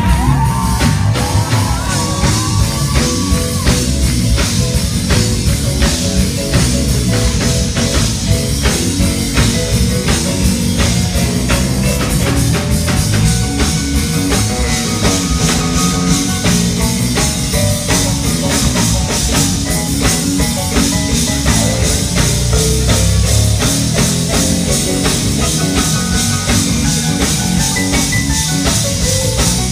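Live gospel band playing a fast, steady praise-break groove, led by the drum kit with electric guitar.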